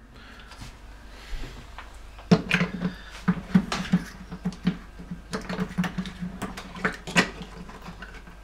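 Irregular plastic clicks and knocks as a replacement drain rotor is pushed down and turned clockwise into its housing in the bottom of a Fisher & Paykel DishDrawer tub, under standing water. The knocking starts about two seconds in.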